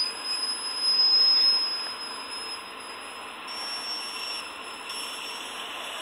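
Copper stovetop whistling kettle at the boil, a steady, piercing high whistle over the hiss of escaping steam; its pitch steps up slightly about three and a half seconds in.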